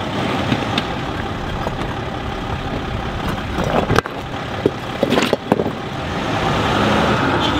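Mercedes Sprinter 4x4 van crawling slowly over rocky ground, its engine and drivetrain running steadily. Several sharp knocks and clunks come in a cluster from about three and a half to five and a half seconds in.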